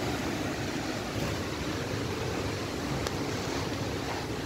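Strong wind rushing steadily, with a low rumble of wind buffeting the microphone.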